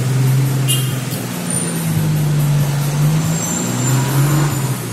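Truck engine running steadily as the truck rolls slowly, heard from the cab, its pitch wavering slightly over road noise. A brief high-pitched ring just under a second in.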